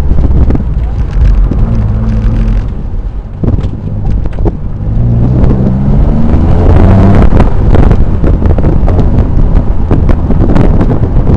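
Engine of a twin-turbocharged 2004 Nissan 350Z roadster, a 3.5-litre V6, driven hard under heavy wind buffeting on the microphone. The engine note drops away about three seconds in, then climbs in pitch as the car accelerates again, before the wind drowns it out.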